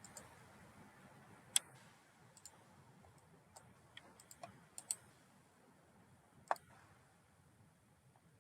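Computer mouse clicks, scattered and irregular, about a dozen over a faint steady hiss, the loudest about a second and a half in and another about two-thirds through.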